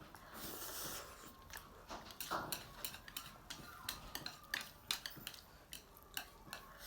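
Chopsticks clicking and scraping against a bowl while picking at noodles: many small, irregular clicks.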